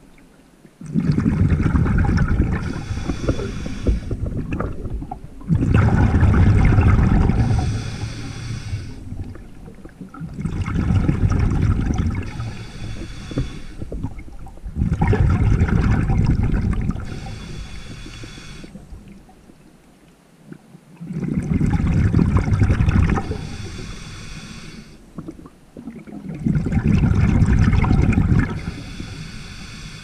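Scuba diver breathing underwater: a long rush of exhaled bubbles and regulator hiss about every five seconds, six breaths in all, with short quiet gaps between them.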